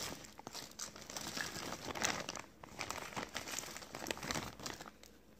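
Irregular crinkling and rustling close to the microphone, busiest in the first few seconds and dying down near the end.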